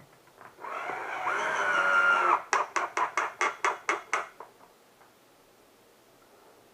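A power drill driving a chair-assembly screw: a steady whir for about a second and a half, followed by a quick run of about eight sharp clicks.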